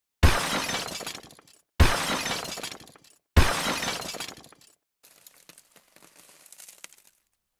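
Intro sound effect: three identical sudden hits about a second and a half apart, each dying away over about a second, followed by a fainter scattered crackle.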